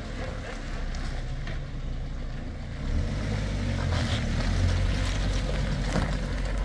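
Peugeot 405 sedan's engine idling: a low, steady rumble that grows a little louder about three seconds in.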